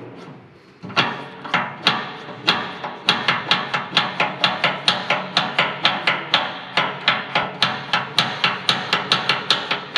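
Hand fuel primer pump on a 1989 Cat D7G dozer being worked up and down, with a sharp clack on each stroke. The strokes come about twice a second at first and quicken to three or four a second. It is drawing diesel from the tank into the new fuel filters and pushing the air out through the cracked bleeder screw.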